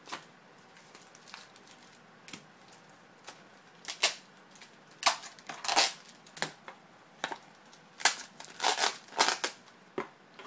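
Trading-card packs and their cardboard box being handled: irregular crinkling and rustling of the wrappers, with sharp clicks and taps between short bursts.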